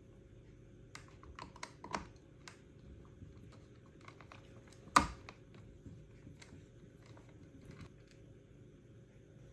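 Small clicks and taps of a precision screwdriver working the screws out of a Dyson V11 battery pack's plastic case, a cluster of light clicks early on and one sharp, loud click about five seconds in.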